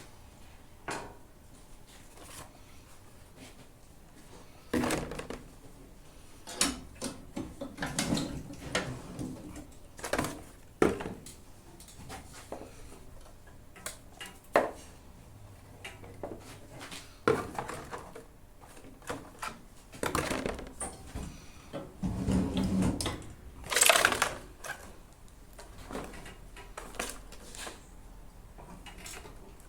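Scattered clunks, clicks and scrapes of hands and tools working on a push lawn mower while getting ready to drain its engine oil, with the loudest clunk about 24 seconds in.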